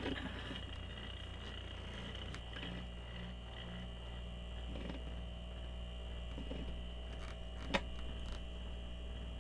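Van refrigerator compressor running with a steady hum while its loose mounting bracket is being tightened to stop a rattle. A single sharp click sounds about three-quarters of the way through.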